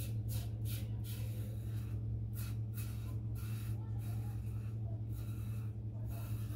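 Karve aluminium double-edge safety razor with a Perma-Sharp blade scraping through several days' head stubble under thick lather, in short strokes about two or three a second, over a steady low hum.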